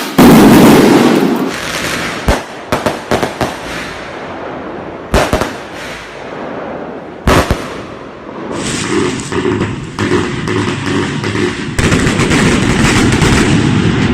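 Fireworks cake (multi-shot consumer firework) going off: a loud burst at the start, scattered cracks and two sharp bangs, then a dense, pulsing crackle from about halfway through.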